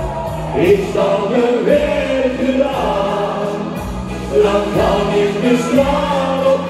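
Music with singing: a sung melody over held bass notes.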